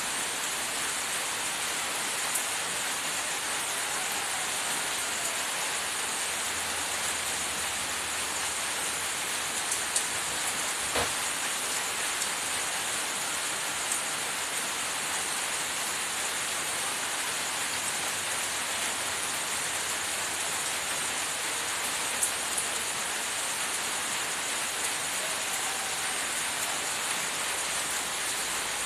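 Steady, even hiss throughout, with a few brief light clicks now and then.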